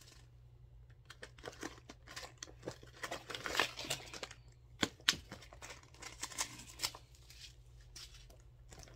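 Paper and small plastic packets crinkling and rustling as the stuffing and desiccant packets are pulled out of a handbag, with a few sharp clicks of handling in the middle.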